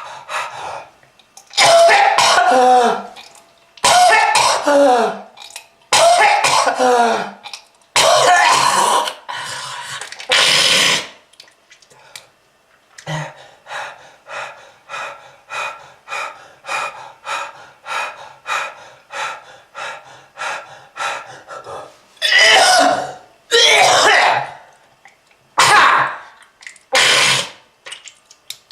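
A person's hacking smoker's cough: repeated loud, harsh, phlegmy coughing fits, each with a groan that falls in pitch. In the middle comes a run of short quick rasps, about two a second, then more heavy coughs near the end.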